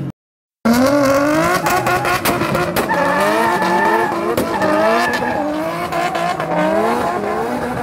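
Drift cars sliding on tarmac: the engines rev up and drop back over and over, with tyres skidding and squealing. The sound cuts out for about half a second at the start.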